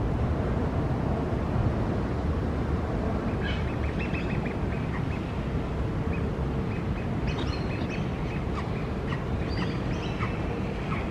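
Young Australian magpie giving runs of short, high calls, first about three seconds in and again from about seven to ten seconds, over a steady low rumble.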